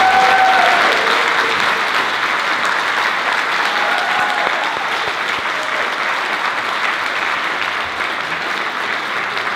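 Audience applauding steadily, with a few whoops and cheers near the start and again about four seconds in.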